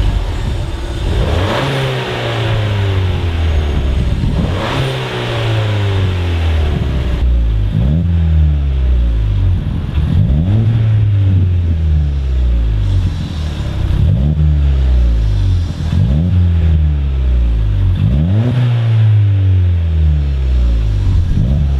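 Ford Fiesta ST's turbocharged 1.6-litre four-cylinder engine revved repeatedly at standstill, the pitch rising and falling with each blip. First it plays through the stock exhaust. After a cut about seven seconds in, it plays through a Scorpion cat-back exhaust, blipped roughly every two seconds.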